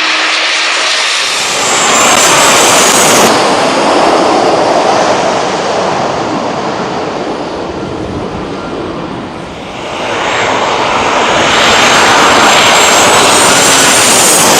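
Jet airliner passing low overhead at close range: loud engine noise with a high whine, swelling twice.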